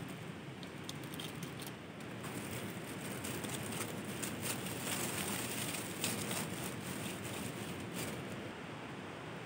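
Open wood fire crackling: irregular sharp pops and snaps over a steady hiss, busiest in the middle.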